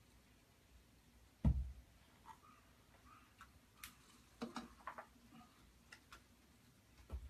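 Quiet room with a dull thump about one and a half seconds in, a scatter of light clicks and taps, and a second thump near the end.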